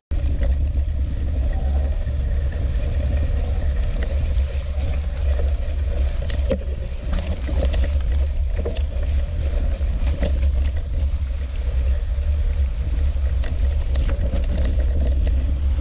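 Mountain bike riding through mud and puddles: a steady low rumble of jolting and wind on the bike-mounted camera's microphone, with tyres hissing and squelching through wet mud and occasional knocks from bumps.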